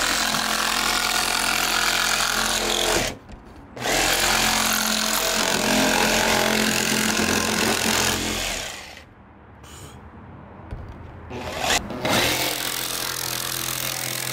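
Makita cordless jigsaw cutting, trimming the edge of a roof cut-out so a rooflight will fit. It runs in three stretches, stopping briefly about three seconds in and again for about three seconds past the middle.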